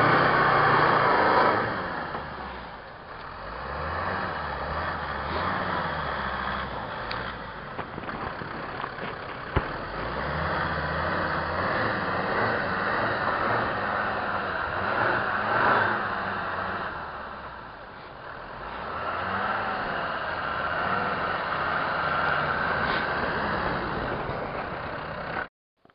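Land Rover Defender 110 engine revving up and easing off over and over as the truck pushes through deep snow. The sound cuts off abruptly near the end.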